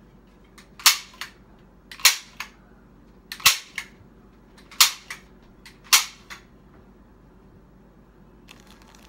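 Hand-held staple gun fired five times, a little over a second apart, each sharp snap followed by a softer click.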